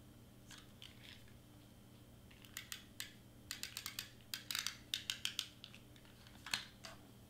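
Handheld tape runner clicking as it is pressed and rolled along a paper cutout: a run of quick, uneven clicks starting about two seconds in, with a louder click near the end.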